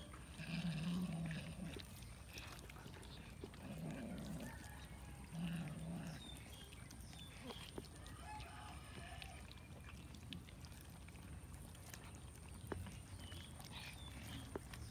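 Several cats eating cooked chicken off a carcass: wet chewing and tearing with scattered sharp clicks, and a few short low growls, the loudest about a second in and again around four and five and a half seconds. Short bird calls sound faintly in the background.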